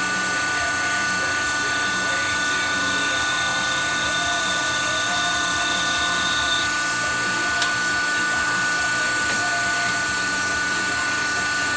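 WW2-era manual lathe running steadily with a high-pitched whine while turning combustion chamber shapes in a cylinder head. There is one sharp click about seven and a half seconds in.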